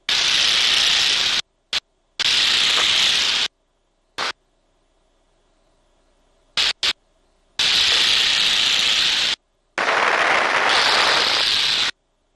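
Bursts of steady hiss on the T-6 trainer's cockpit intercom feed, each switching on and off abruptly: four lasting a second or two and four brief clicks of it, with near silence between, as the gated microphone opens on cockpit noise and closes again.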